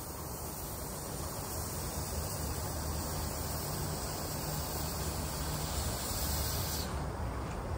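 A pair of P36 steam locomotives heading a passenger train on approach, heard as a steady low rumble with hiss that slowly grows louder as the train comes closer.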